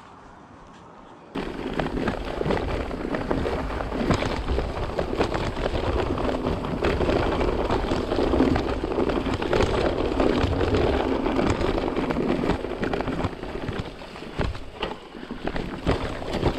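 Mountain bike riding down a trail covered in dry leaves: the tyres crunch and crackle through the leaf litter, and the bike rattles over roots and stones with many small knocks. It starts suddenly about a second and a half in, after a quieter stretch, and eases a little near the end.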